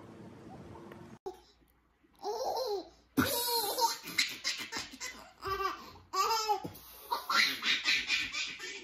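A baby laughing hard in repeated high-pitched bursts, starting about two seconds in. Before that comes a faint steady hiss that cuts off after about a second.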